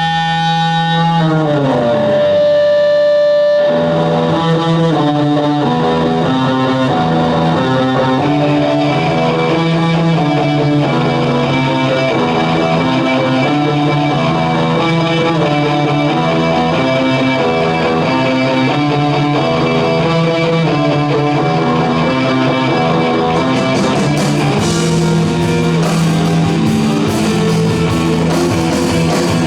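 Instrumental rock band with effects-laden electric guitars: a held chord bends down in pitch about a second in, then repeating picked guitar lines over a steady bass line. Cymbals come in near the end.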